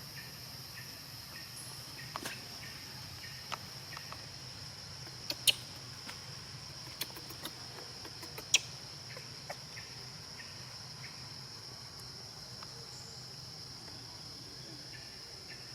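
Steady high-pitched insect chorus, with a scattering of sharp clicks or snaps, two of them louder, about five and a half and eight and a half seconds in.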